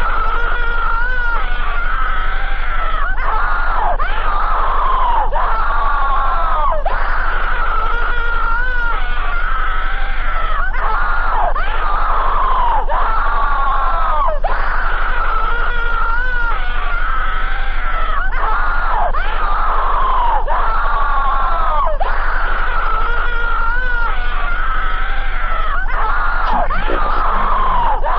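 Distorted, warbling screams, one after another roughly every second, over a steady low hum.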